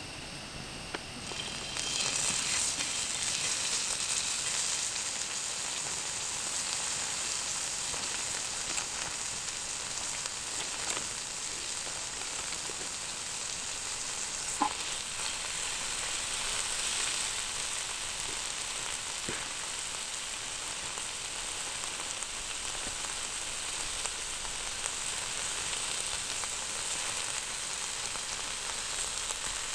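Food sizzling in a hot pan, a steady frying hiss that starts about a second and a half in, with a few light clicks.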